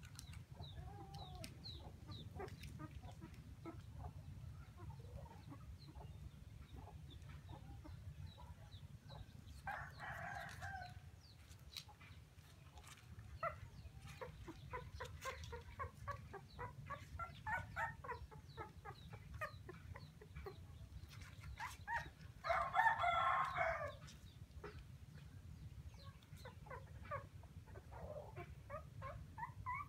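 Chickens clucking, with a rooster crowing twice: once about a third of the way in and louder about three-quarters of the way through. A steady low hum runs underneath.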